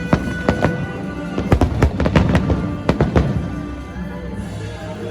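Fireworks going off in repeated sharp bangs, several in quick succession, over music playing.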